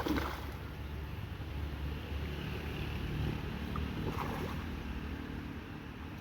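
Steady low rumble of flowing river water, with wind on the microphone. A short knock or splash comes right at the start.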